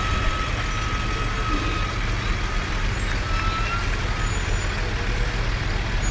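Engines of a slow-rolling ambulance and fire truck running with a steady low rumble at walking pace.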